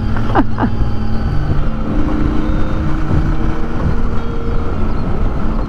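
Motorcycle engine running while the bike is ridden, its note shifting in pitch a little over a second in, with wind rushing over the microphone.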